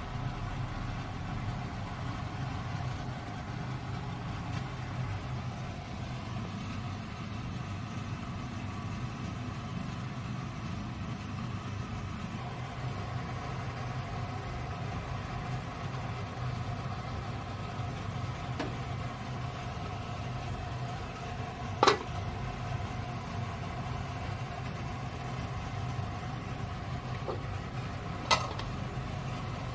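Steady low mechanical hum of a kitchen fan running, with two sharp clicks about six seconds apart late on.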